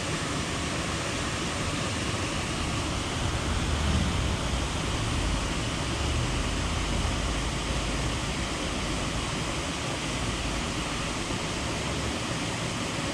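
Steady rushing of a small waterfall and stream pouring into a pool, with a low rumble swelling in the middle.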